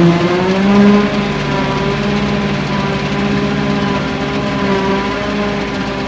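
John Deere 7750 self-propelled forage harvester running under load while chopping hay, a steady engine and machine drone. Its pitch sags briefly right at the start and recovers within about a second.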